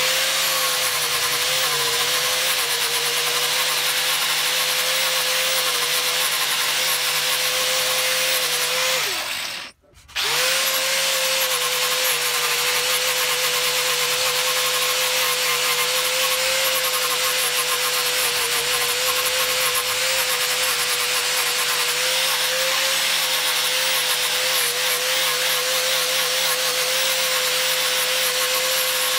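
Angle grinder with a flap disc running at a steady whine, sanding down a block of wood. About nine seconds in it winds down and cuts off, then starts up again a second later.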